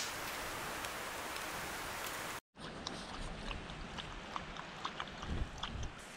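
Steady rushing hiss beside a wood campfire, with a sharp pop at the start, cut off abruptly about two and a half seconds in. Then come quieter scattered light clicks and a few soft thumps as a small dog noses at a stainless steel bowl on the tent floor.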